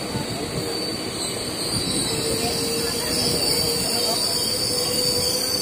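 Passenger express train running at speed, heard from aboard a coach: a steady rumble of wheels on rail, with a high-pitched squealing whine throughout and a lower steady tone joining about two seconds in, where it grows slightly louder.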